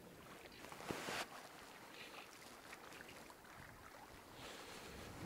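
Faint wind on the microphone and choppy lake water lapping at the shore, with a brief louder rush about a second in.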